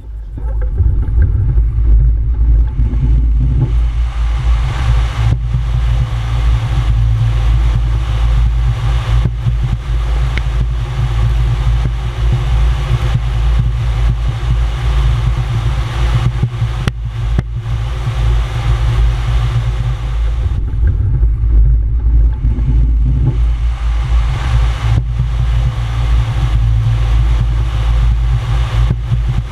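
Rushing airflow buffeting the microphone on an open-cockpit Slingsby glider in flight, a loud, gusty low rumble with a hiss over it. It swells quickly in the first second as the glider gathers speed, then holds steady.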